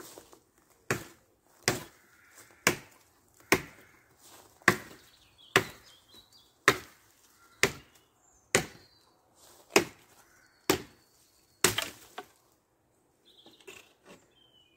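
A scramasax, a large chopping knife, hacking into a fallen branch for firewood: about a dozen sharp chops, roughly one a second, that stop about twelve seconds in.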